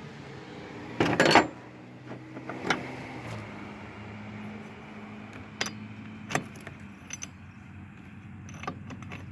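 Metal tools and small parts clinking and clattering as they are handled, loudest in a short rattling burst about a second in, then a few single sharp clicks, over a steady low hum.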